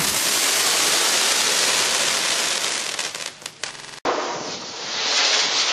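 Dominator Pro Line modular fireworks cake firing its crackling comets with green strobe mines: a dense, continuous crackle that thins out into a few last pops about three and a half seconds in. After an abrupt cut at about four seconds, the next segment's red star mines fire with a dense, steady rush of noise.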